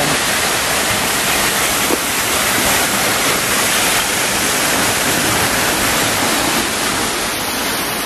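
Waterfall close by: a loud, steady rush of falling water.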